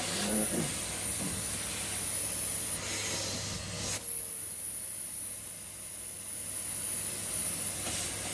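Henry XL cylinder vacuum cleaner running: a steady rush of air with a thin high motor whine. There is a sharp knock about four seconds in, after which the lower part of the noise drops a little.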